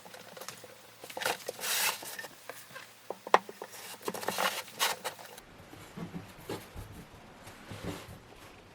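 Small hard parts being handled: irregular light clicks, taps and rustling, the sharpest click a little over three seconds in.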